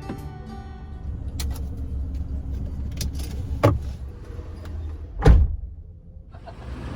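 Car door shut with a heavy thud about five seconds in, after a lighter knock, over a low rumble.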